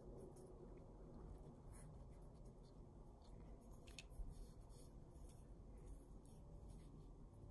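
Near silence: a faint low background hum with scattered soft ticks and scratches.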